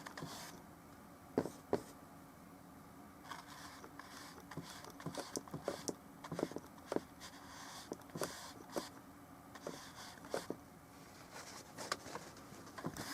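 Oil painting brush working paint on a small panel: irregular scratchy strokes and light taps and dabs, coming in clusters with short pauses between.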